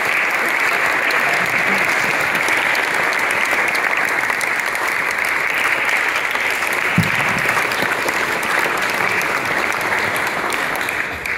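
Audience applauding steadily, a dense, even clapping that begins to tail off at the very end. A brief thump sounds about seven seconds in.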